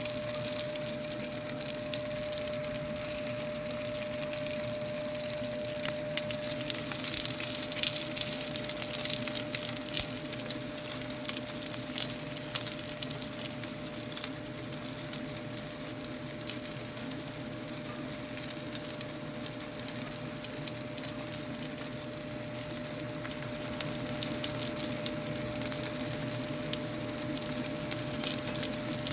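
Potstickers (guotie) pan-frying in oil, sizzling steadily with scattered crackles that grow busier about a quarter of the way in and again near the end. A steady hum sounds underneath.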